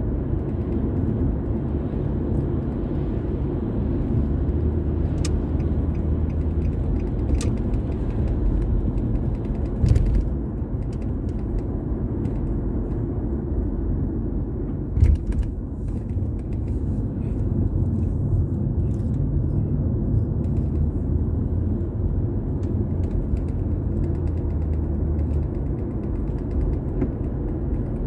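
A car's steady low road and tyre rumble while driving, with two brief thumps about ten and fifteen seconds in.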